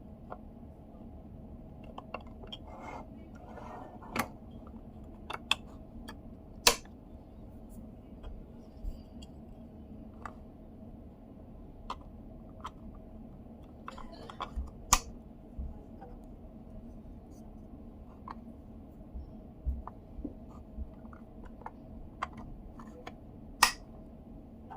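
Scattered clicks and light taps of small plastic parts being handled while a Mazda commander control knob is taken apart or put back together, a few sharper clicks standing out, over a steady low hum.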